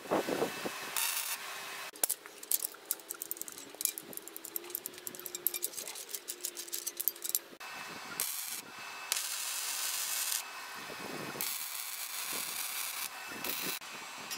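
Electric arc welding on steel box-section: the arc crackles and sizzles, at first as a dense run of pops, then in separate stretches of steady hiss between pauses.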